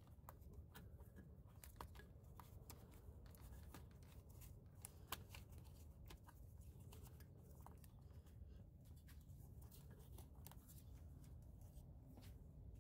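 Near silence, with faint scattered clicks and rustles of hands pulling a cut wire out of the fuse box harness.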